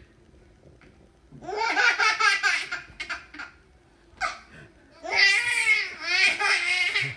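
A toddler laughing in two bouts: a first one starting about a second and a half in, and a longer one near the end.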